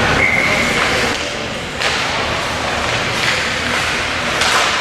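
Ice hockey rink during play: a steady noisy arena wash broken by several sharp knocks and thuds, typical of sticks and puck hitting the boards.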